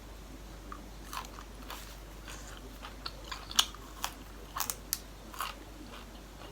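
Close-miked chewing and crunching of food: a string of crisp, crackly bites, the sharpest about three and a half seconds in.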